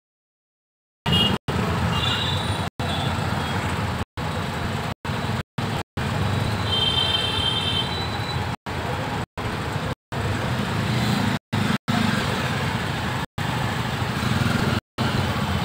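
Road traffic noise: motorcycle and auto-rickshaw engines running in stalled traffic, a steady low rumble with a few brief high-pitched tones. It begins about a second in and cuts out for split seconds again and again.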